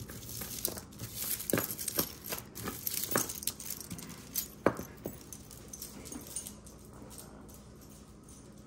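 Costume jewelry (faux pearl strands, glass beads and metal chains) clicking and rattling as hands rummage through a pile of it, with a few sharper clacks, dying away after about six seconds.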